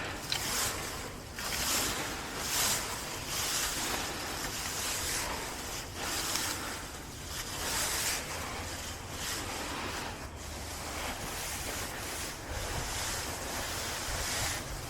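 Close-up noise of grass and weeds being pulled up by hand: repeated rustling bursts, about one every second, mixed with heavy breathing from the effort.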